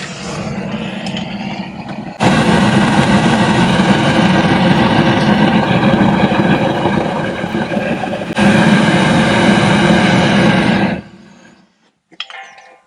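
Gas torch burning with a steady roar, heating a steel bushing red hot so it will expand enough to drop over its interference fit. It gets louder about two seconds in and cuts off about a second before the end.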